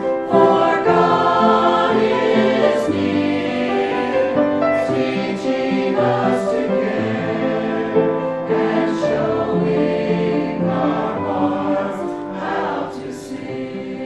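A choir singing a hymn in sustained chords.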